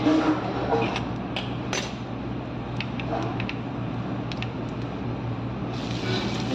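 Scattered light clinks and taps of kitchen utensils against dishes, a dozen or so short sharp knocks, over a steady low hum.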